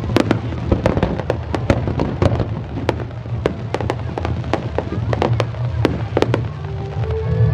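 Aerial fireworks bursting in quick succession, about two to three sharp bangs a second, with crackle between them.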